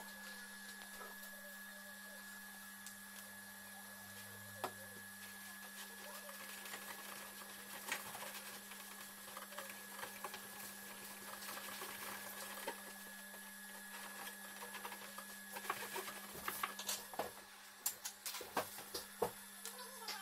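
Cloth rubbing and wiping over a plastic projector cabinet, with light scuffs and small knocks that come thicker near the end, over a steady low hum and a faint high whine.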